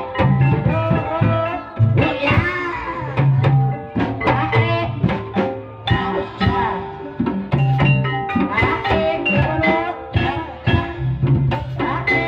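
Live Javanese ebeg dance music: a gamelan-style ensemble of tuned mallet percussion and drums playing a steady, busy rhythm, with a wavering melodic line coming in twice.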